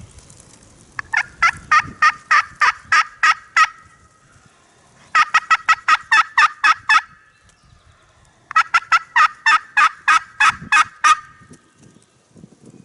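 Turkey yelping: three runs of about ten evenly spaced yelps each, roughly five a second, loud and close.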